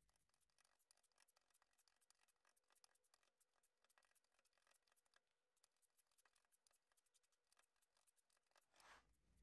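Faint, rapid tapping of a knife blade chopping cold butter into flour against a wooden tabletop, with a brief pause about halfway through. This is the stage of cutting the butter into crumbs for chopped shortcrust pastry.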